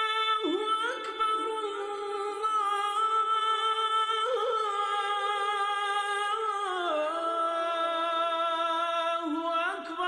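A single unaccompanied voice chanting long, drawn-out notes that glide slowly between pitches. The pitch steps down about two-thirds of the way through and lifts briefly near the end.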